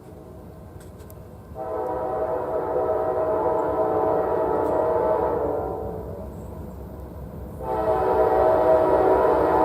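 Diesel freight locomotive's multi-chime air horn sounding two long blasts: the first starts about a second and a half in and lasts about four seconds, the second starts near eight seconds and is still sounding at the end. A low rumble from the passing train runs underneath.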